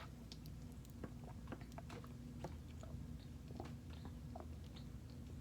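Faint mouth and throat sounds of someone drinking a Sprite: small irregular clicks of swallowing and gulping.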